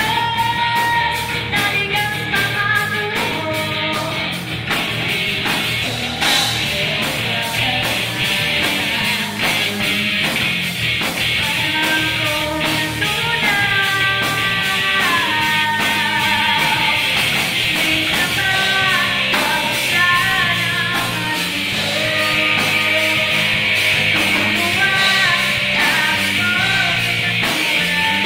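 Live rock band rehearsal: an electric guitar played through a combo amplifier over a drum kit, loud and continuous, with the guitar line moving in pitch.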